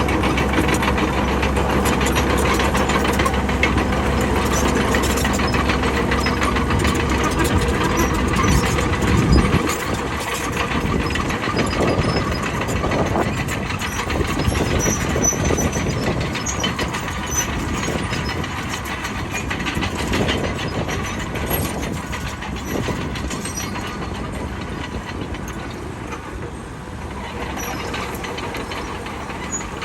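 Bulldozer's diesel engine running. About a third of the way through, the steady low hum drops away and the sound turns rougher and a little quieter.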